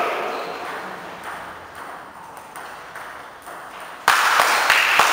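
Table tennis balls clicking off bats and tables, with a few faint taps in a quieter stretch. About four seconds in comes a sudden louder stretch of noise with several sharp clicks.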